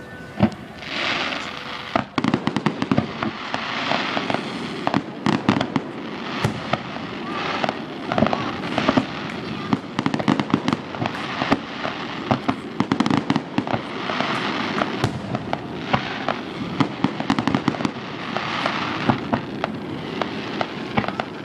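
Aerial fireworks shells bursting in rapid succession: many sharp bangs close together, with recurring swells of crackling every couple of seconds.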